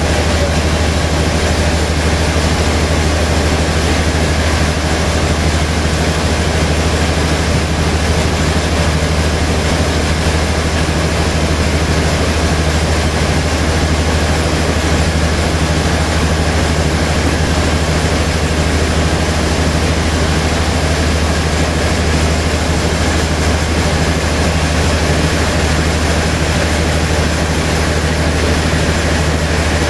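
A large log band saw running steadily with a deep hum, its blade sawing through a big log on the carriage.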